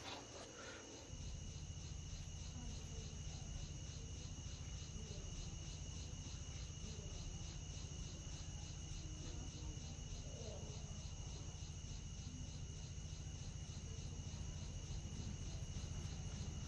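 Faint crickets chirping steadily in a fast, even pulse over a low steady hum that comes in about a second in.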